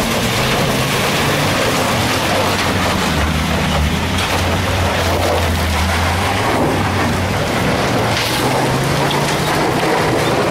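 Mercedes-Benz Sprinter minibus with a trailer climbing a loose rocky track: a steady, loud engine rumble under heavy load, its pitch shifting a little, over the grinding crunch of tyres on rocks and gravel. The vehicle is struggling for grip on the climb.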